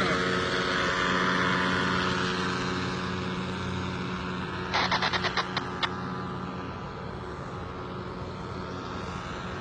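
Nitro 200 paramotor's engine and propeller droning in flight, a steady hum that slowly fades as the aircraft moves away. About five seconds in, a quick run of about eight sharp clicks.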